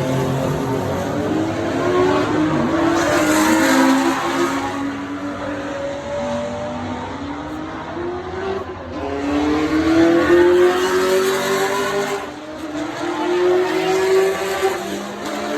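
High-performance car engine accelerating hard, its pitch climbing in several long rises, each falling back sharply as if at a gear change.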